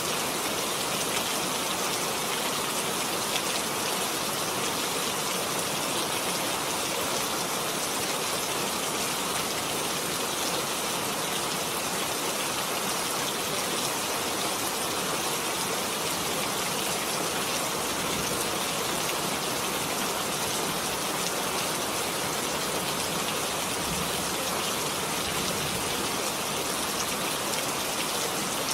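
Heavy rain falling steadily, a dense, even hiss of drops with no breaks.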